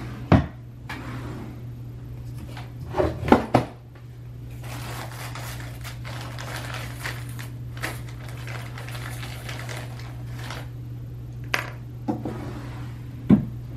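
Someone rummaging through small objects: scattered knocks and clatters as things are picked up and set down, with rustling between, over a steady low hum.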